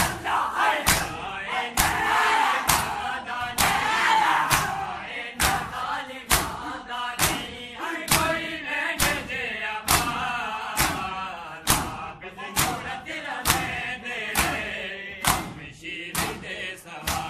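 Crowd of men doing matam, slapping their bare chests with open palms in unison: one loud, sharp slap about every second, with massed male voices chanting between the strikes.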